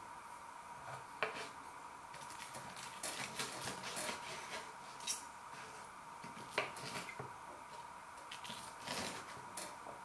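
Knife and fork cutting into a breadcrumb-coated chicken breast on a chopping board: a run of scrapes and crackles, with sharp clicks of the metal on the board, the loudest at about six and a half seconds.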